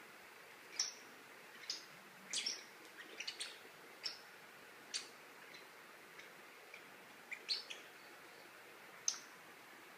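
Irregular light clicks and taps on a hard tile floor as a Papillon puppy leaps and scrabbles at a dangling cat toy, about a dozen in all, some coming in quick little clusters.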